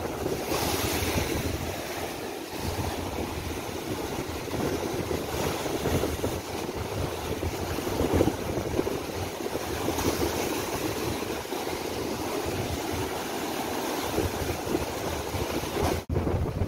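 Rough sea surf breaking and churning against a concrete boardwalk's edge, in a steady rush that swells with the bigger waves, with wind buffeting the microphone.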